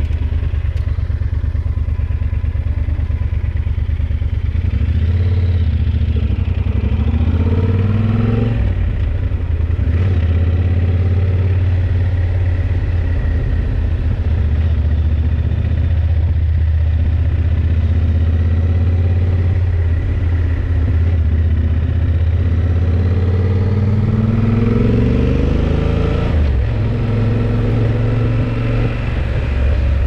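Yamaha XT1200Z Super Ténéré's parallel-twin engine running under way. Its pitch climbs twice as it accelerates, once in the first third and again in the last third, each time falling back at the top.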